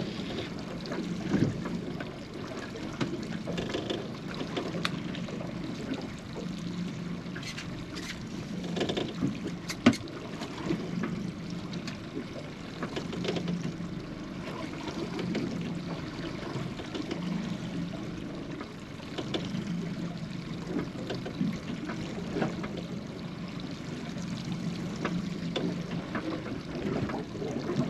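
Water sloshing against the hull of a small boat adrift at sea, in low swells that come and go every second or two. A few sharp clicks and knocks, the loudest about ten seconds in.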